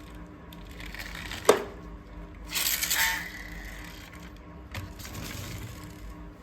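Handling noises from unboxing a toy RC car: a sharp click about a second and a half in, then a short burst of rustling packaging around three seconds.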